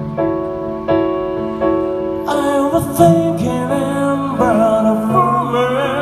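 A live song: instrumental accompaniment with chords struck about once a second, then a singer's voice with vibrato comes in a little over two seconds in, holding drawn-out notes.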